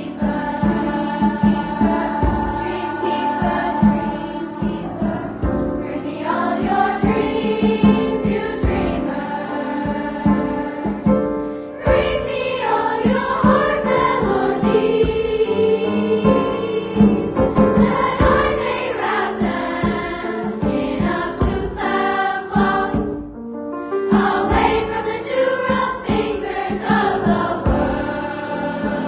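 Choir singing in several-part harmony, with a short dip in level about two-thirds of the way through.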